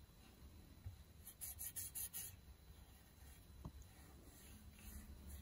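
Faint fingertip rubbing on raw polymer clay, working powdered mica pigment onto its textured surface: a run of quick short strokes about a second and a half in, and more near the end.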